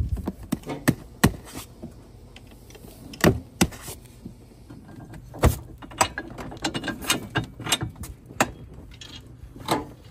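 Irregular metallic clicks and knocks of a quad's passenger backrest bracket being slid and fitted onto its square-tube mount on the rear frame.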